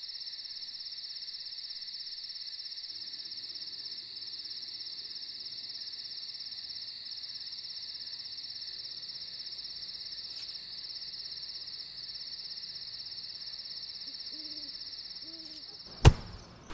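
Crickets trilling steadily at a high pitch, with a few brief dips. A single sharp knock near the end.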